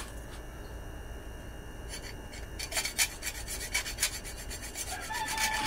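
Short scraping strokes on a motorcycle starter motor's metal housing as an alignment mark is made across the joint between the housing and its end cap, starting about halfway in. A thin squeal follows near the end.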